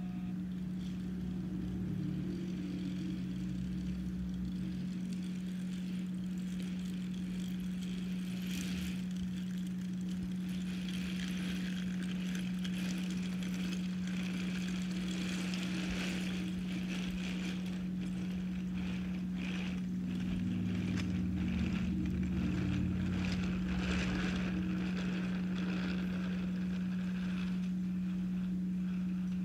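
Toy train set: a steady electric motor hum, with a light plastic clicking and rattling of trains running along the track through the middle stretch.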